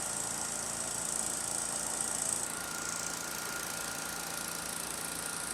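Steady outdoor background: a low engine hum with a steady high insect buzz over it.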